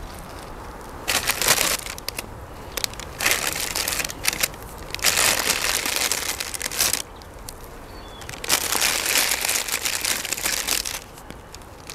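A plastic bag of bulbs rustling and crinkling in four or five separate bursts, each a second or two long, as bulbs are taken out of it.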